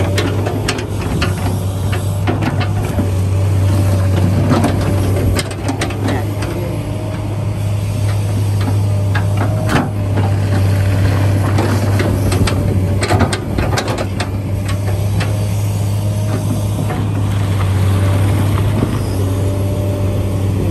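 A steady low engine hum with scattered clicks and knocks over it.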